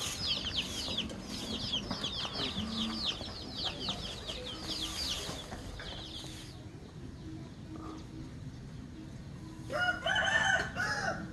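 Quick high chirping, about four or five falling chirps a second, for the first six seconds or so. Then a rooster crows once near the end.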